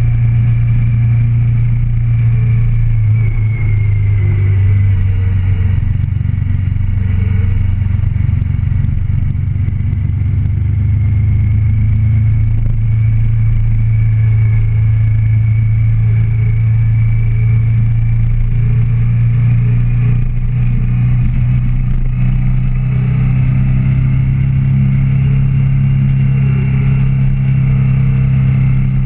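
Motorcycle engine running at a steady cruise, heard from on the bike: an even low drone that holds its pitch, with a faint high whine above it.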